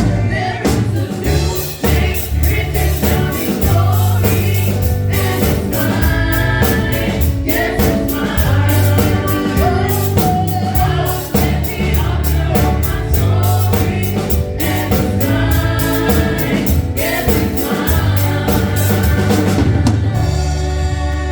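Gospel song sung by a group of voices with live band accompaniment: a strong bass line and a drum kit keeping the beat.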